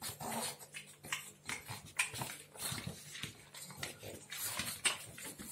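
A pug sniffing and snuffling at a pressed-sinew chew bone held in a hand, mouthing it, in a run of short irregular breathy sounds.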